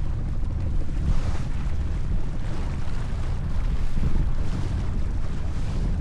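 Wind buffeting the microphone as a steady low rumble, over the rush of water along the hull of a J/24 racing keelboat under sail, swelling slightly about a second in and again about four seconds in.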